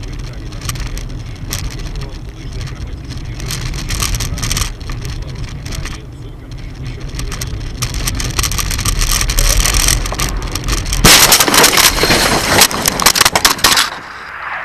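Car interior road noise with a low engine rumble and scattered clicks, then about three seconds of loud crackling noise starting about eleven seconds in.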